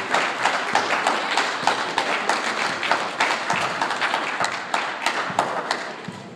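Audience applauding, the clapping dying down near the end.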